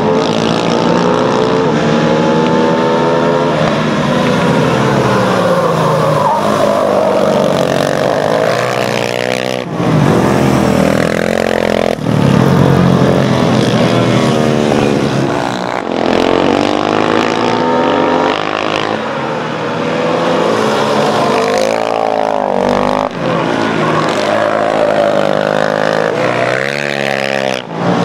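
Several racing sport quad (ATV) engines revving hard, their notes climbing and dropping back again and again through gear changes as the quads accelerate and pass.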